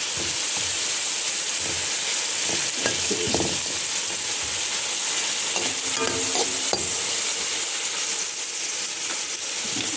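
Chopped onion, sweet pepper, tomato and cucumber sizzling steadily in a hot pot while being stirred.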